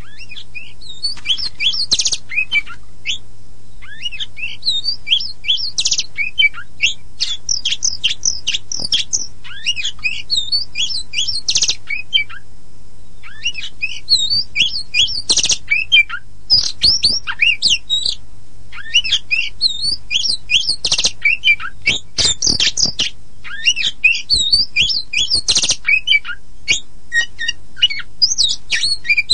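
Kacer poci (Oriental magpie-robin) singing a fast, varied song of whistles, chirps and trills in loud phrases with brief pauses, the longest about twelve seconds in. It is played as a lure to set a silent or off-song kacer singing again. A faint steady low hum runs underneath.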